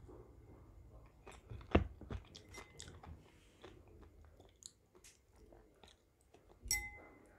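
Close-up chewing of a mouthful of rehydrated sea grapes, the small beads crunching and popping as a run of short crisp clicks, the loudest about two seconds in. Near the end comes a sharper click with a brief ringing tone.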